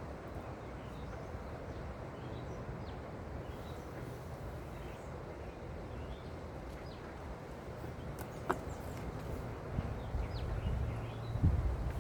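Quiet outdoor background: a steady low rumble with faint bird chirps scattered through it. There is a single sharp click about eight and a half seconds in, and a few low thumps near the end.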